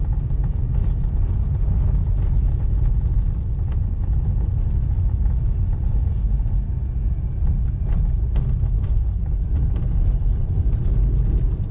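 Mazda RX-8's twin-rotor rotary engine and road noise heard from inside the cabin while driving slowly on a snowy road: a steady low rumble with faint scattered clicks.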